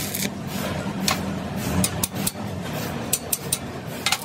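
Factory machinery noise: a steady low machine hum with a run of sharp clicks and knocks at irregular intervals.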